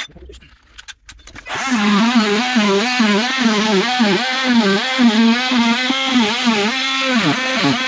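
Makita DTM50 cordless oscillating multi-tool running as its blade cuts into a boxing panel. A steady buzz starts about a second and a half in, after a few handling clicks, and its pitch keeps dipping and recovering as the blade bites.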